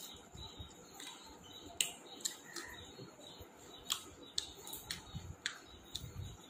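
A person eating close to the microphone: chewing with about a dozen irregular sharp clicks and smacks.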